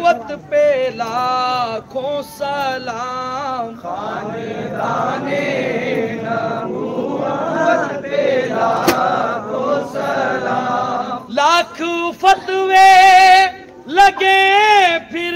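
Men's voices chanting a devotional verse together, the group blending into one dense sound in the middle. From about two-thirds of the way in, a single male voice leads, louder, with long wavering held notes.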